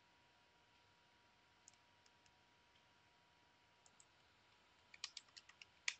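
Near silence with a few faint clicks, then a quick run of about half a dozen louder computer keyboard keystrokes near the end.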